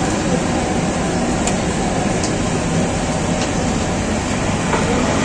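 Steady hum and hiss of street background noise, with a few faint clicks.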